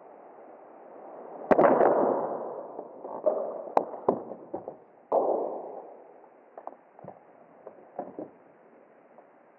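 A clear plastic bottle being crushed under a heavy work boot: sharp crunches and crackling of the plastic, the loudest about a second and a half in and again about five seconds in, with smaller crackles as the boot shifts its weight near the end.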